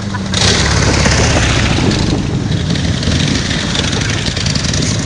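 Motorcycle engines running low and steady close by. A rushing noise joins them about half a second in.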